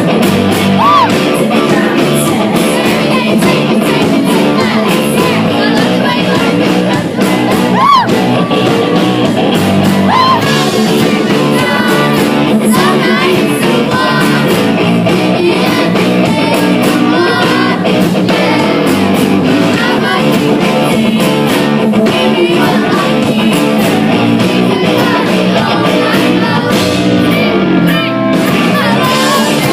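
Pop-rock band playing a song live at a soundcheck, with electric guitars, drums and lead vocals, loud and continuous.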